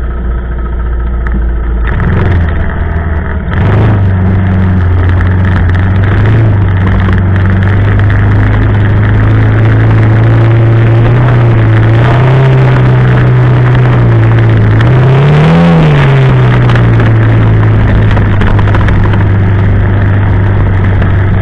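ATV engine running under way at a steady pace, its note rising and falling briefly with the throttle, most sharply about fifteen seconds in.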